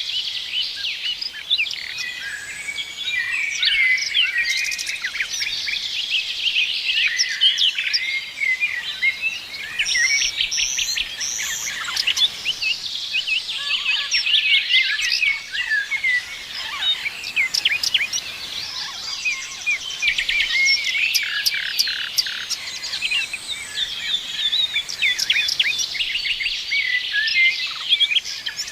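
Many songbirds chirping and trilling at once, a dense continuous chorus of short calls.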